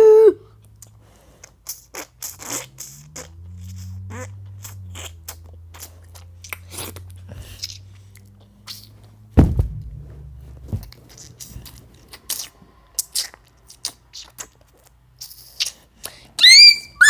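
Assorted clicks, crunches and scrapes made close to a microphone, over a low hum that rises in pitch about three seconds in. There is a loud thump about nine seconds in, and high-pitched gliding squeals near the end.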